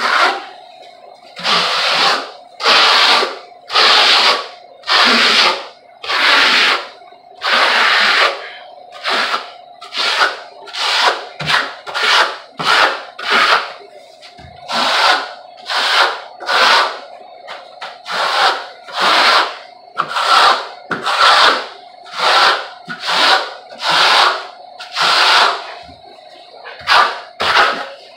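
Steel trowel scraping plaster across a wall over embedded fiberglass mesh, in repeated strokes about one a second, with some quicker runs of strokes in the middle.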